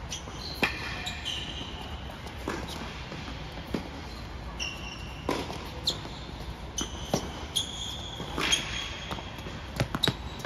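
Tennis rally on an indoor hard court: sharp racket strikes and ball bounces every second or so, with short high squeaks of sneakers on the court surface.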